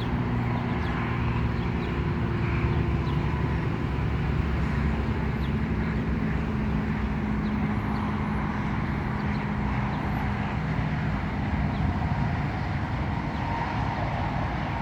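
Steady low hum of vehicle engines with a constant wash of road traffic noise.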